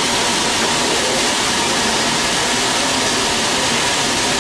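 Artificial snow machine blowing fake snow down from the roof: a steady, even rushing noise.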